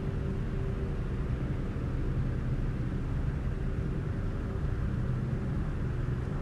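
A car driving along a road: a steady low engine and road rumble with a faint even hum, no change in pace.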